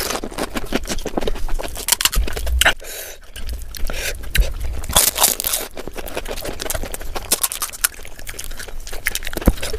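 Close-miked crunching and crackling of crisp panipuri shells as they are bitten, chewed and cracked open by hand, with a brief lull about three seconds in.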